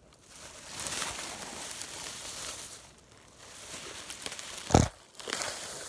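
Crinkling, rustling noise in two stretches, with one sharp loud knock a little before the end.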